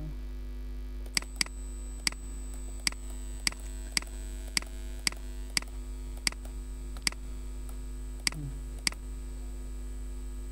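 Computer mouse clicking about a dozen times, sharp single clicks roughly half a second apart, over a steady electrical hum. A faint high whine joins about a second in.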